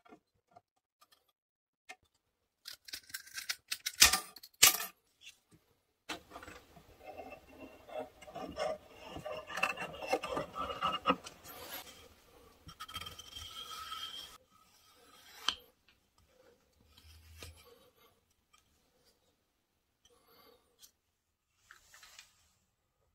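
Hand-work noises from small wooden craft pieces on a tabletop: a few light taps and two sharp knocks, then several seconds of scraping and rubbing, with faint taps near the end.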